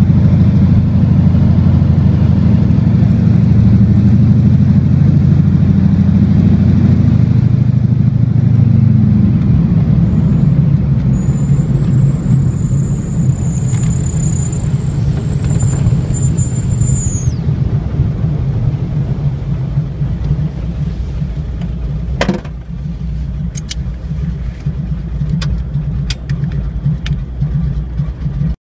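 Floatplane's piston engine heard from inside the cabin as a steady low drone, loud at first and dropping to a lower level about nine seconds in. A thin high whine sounds for several seconds in the middle, and a few sharp clicks come near the end.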